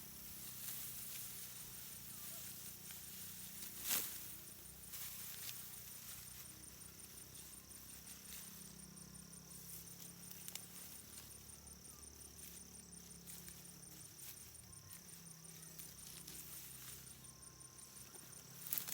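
Faint steady chorus of insects, with a high, evenly pulsing trill. A few sharp clicks or snaps cut through, the loudest about four seconds in.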